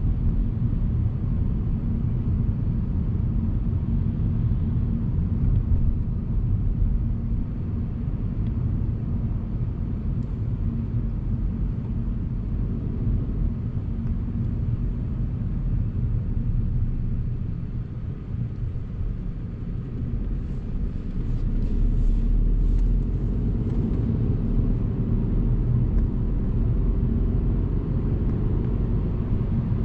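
Inside a moving car's cabin: steady low engine and road rumble from the car driving along. The rumble eases a little in the middle, then grows again with a faint rising engine tone near the end as the car speeds up.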